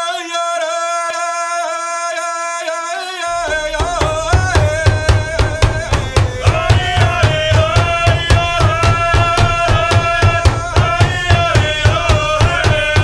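Native American drum-group song: a lone male voice sings the opening line unaccompanied, then about three and a half seconds in a big drum comes in with a steady, quick beat and the singing carries on over it.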